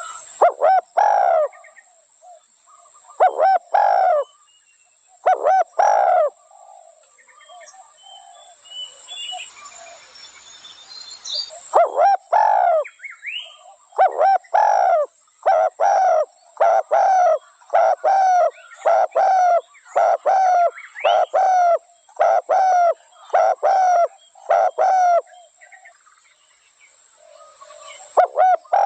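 Spotted dove cooing in repeated soft phrases. A pause with faint hiss and small high chirps comes about a third of the way in, then a long, even run of coos follows at a little over one a second.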